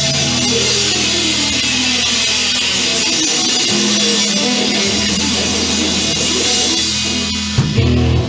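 Blues-rock band playing electric guitar, bass and drums at full volume. Two sharp accented hits come near the end as the song closes.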